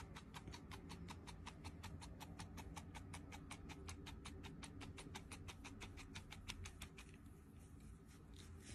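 Tabby cat purring softly, an even rapid pulsing that stops about seven seconds in.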